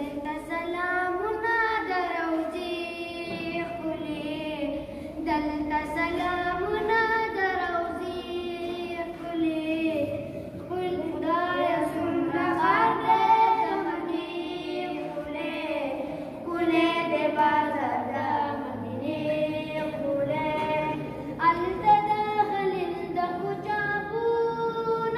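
Boys singing a Pashto devotional nazm about Mecca without accompaniment, a high, sustained melody with sliding, ornamented notes.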